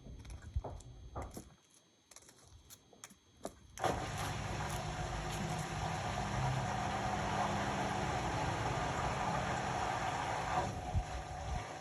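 Indesit Innex BWE 91496X washing machine: a few light clicks and knocks, then about four seconds in a steady running noise with a low hum starts suddenly and carries on, thinning a little near the end.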